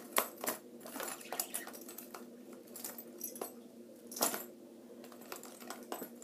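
Buzzbait fishing lures being rummaged for and handled, giving scattered sharp clicks and small metallic clinks, with a louder clack about four seconds in.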